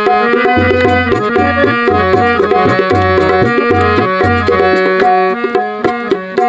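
Instrumental interlude of an Indian devotional folk song: a sustained melodic instrument plays over a tabla-style hand-drum rhythm with regular deep bass strokes.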